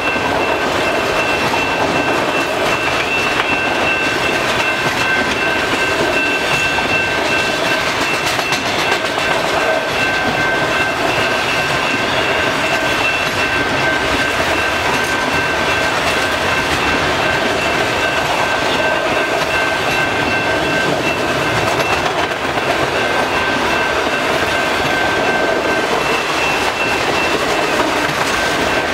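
Autorack freight cars of a long train rolling steadily past, a continuous rumble of wheels on rail, with a steady high-pitched tone held above it.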